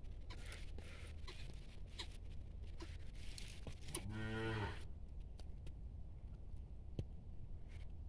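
A cow lowing once: a short, low moo about four seconds in, over scattered faint clicks.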